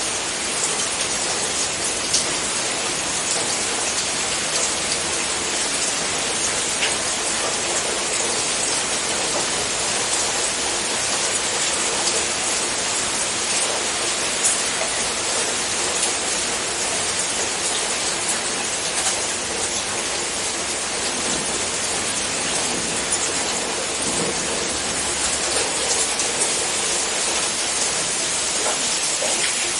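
Steady rain: an even hiss with scattered sharper drop ticks.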